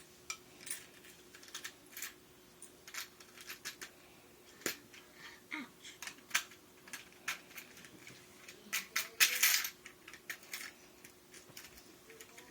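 Irregular clicks and clatters of pennies and plastic Lego pieces as a Lego penny-dispensing machine is worked, with a denser, louder clatter about nine seconds in.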